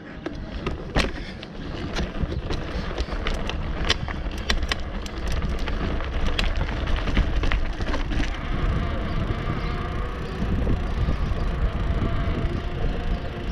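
Bicycle rattling and clicking over rough cobblestone paving, then rolling more smoothly onto marble flagstones about eight seconds in, with a steady low rumble of tyre and wind noise.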